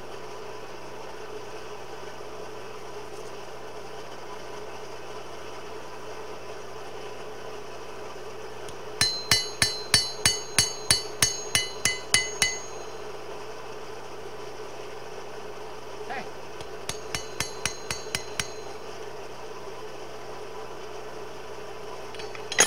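Hand hammer striking hot spring steel on an anvil, straightening the forged blade. A run of about a dozen ringing blows about three a second, then about eight lighter blows a few seconds later and one sharp blow at the very end, over a steady hum.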